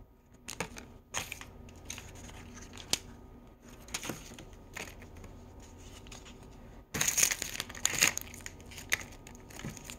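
Toy packaging crinkling and rustling as it is handled, with scattered small clicks and a louder burst of crinkling about seven seconds in.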